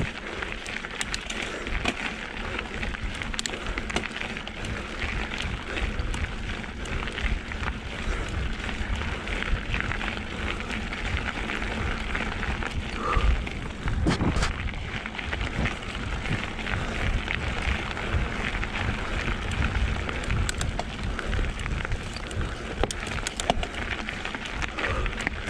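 Mountain bike tyres rolling and crunching over a dirt forest trail on a slow climb, with a steady crackle of grit and small knocks and rattles from the bike. One louder knock comes about 14 seconds in.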